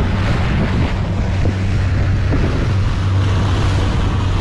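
Small motorboat running at speed: a steady engine hum under loud wind buffeting the microphone and the rush of water from the hull.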